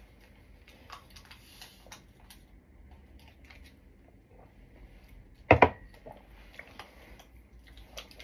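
Light clicks and rustles as a small sachet is handled close by, with one sharp double knock about five and a half seconds in.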